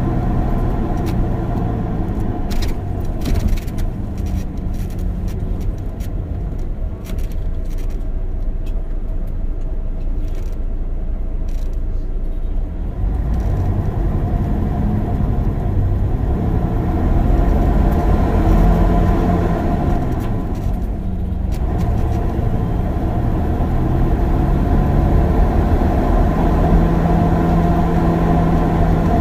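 Interior of an old, noisy bus driving over a poorly paved road: the engine hums steadily, its pitch rising and falling now and then, under road noise. Sharp clicks and rattles from the cabin come mostly in the first half.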